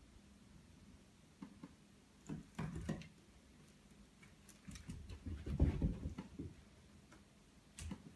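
Chihuahua puppy's claws clicking and pattering on a hardwood floor as it scrambles about, in two short flurries. The second, around the middle, is louder and longer and has dull thumps in it.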